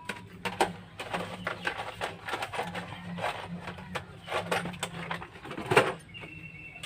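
Hand tools clinking and rattling as they are picked through in a small box, many short irregular clicks with a sharper clatter near the end.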